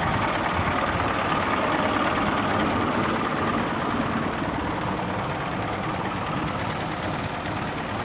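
Mazda Titan truck's engine idling steadily.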